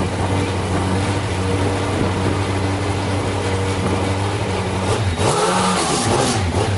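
Race car engine idling steadily, then revved in quick blips from about five seconds in.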